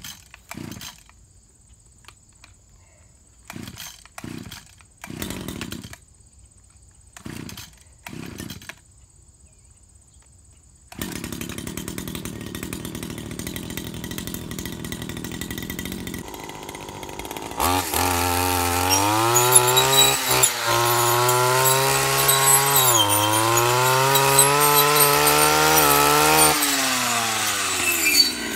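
Stihl FS76 two-stroke brush trimmer being pull-started: several short rope pulls, then the engine catches about eleven seconds in and idles. Near the middle it revs up high, its pitch rising and falling as the throttle is worked.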